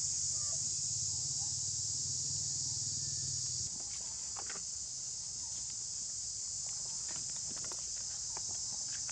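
Steady high-pitched drone of insects. A low hum underneath cuts off suddenly a few seconds in, and scattered light taps follow it.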